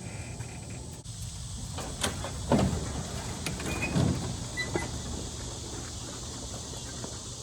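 A vehicle driving, with a steady low rumble of engine and road noise. Two thumps about a second and a half apart come near the middle, followed by a brief high squeak.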